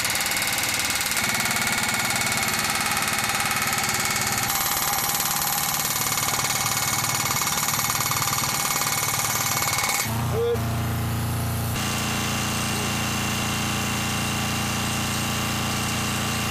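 An engine running steadily, a constant machinery drone whose tone shifts abruptly a few times.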